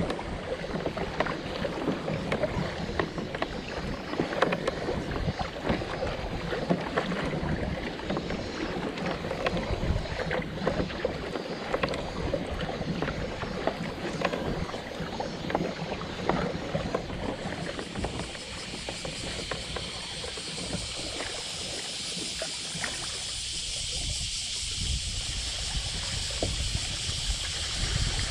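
Water splashing and lapping against a kayak's hull, with many small splashes, and wind on the microphone. From about two-thirds of the way in, the splashing eases and a steadier hiss remains.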